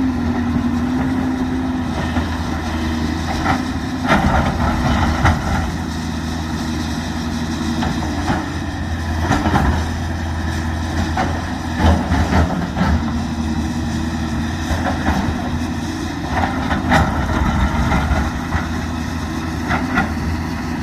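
Excavator's diesel engine running steadily with a low hum, with short knocks breaking in every few seconds.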